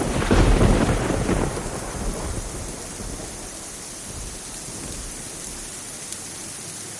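A peal of thunder right at the start, loudest in the first second or so and dying away over about two seconds, over a steady downpour of hard rain.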